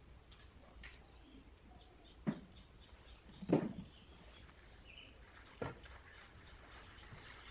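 A few separate knocks over a low background, the loudest about three and a half seconds in.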